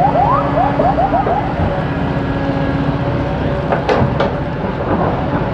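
Excavator diesel engine running steadily. A quick run of short rising chirps comes in the first second, and two sharp knocks come just under four seconds in.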